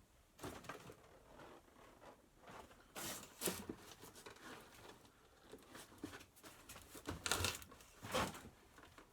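Scattered rustling, scraping and knocking of things being handled, strongest about three seconds in and again near the end.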